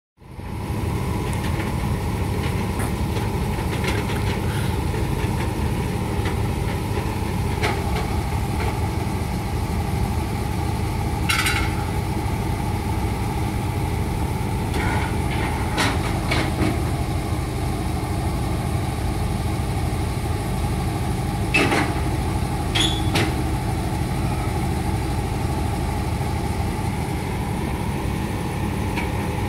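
Engine of a Fahr M44 combine harvester idling steadily, with a few short sharp knocks from the trailer ramps being handled.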